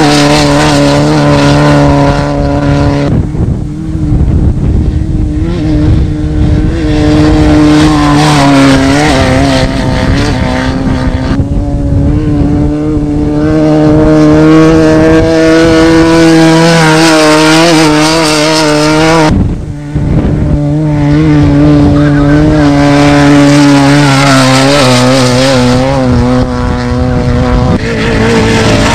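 Off-road desert race vehicle's engine running hard at a steady high pitch, with a brief drop three times as the throttle is lifted before it picks up again.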